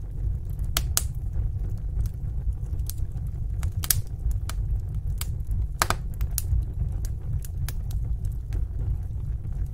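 Fire burning in a fireplace, crackling: irregular sharp pops and snaps over a steady low rumble of flame, with the loudest pops about four and six seconds in.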